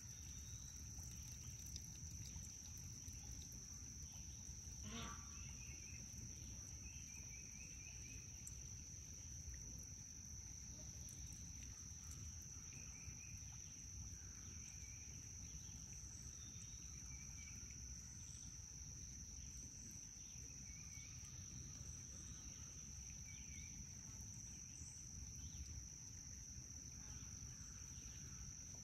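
A steady high-pitched insect drone, with faint short chirps repeating every second or two over a low background rumble, and one brief call about five seconds in.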